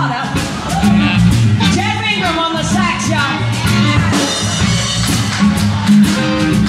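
Live blues band playing: electric guitar, bass and drums under a saxophone taking an instrumental solo.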